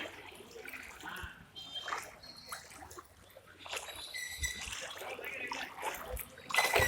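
Floodwater splashing and trickling in small irregular bursts, with faint voices in the background.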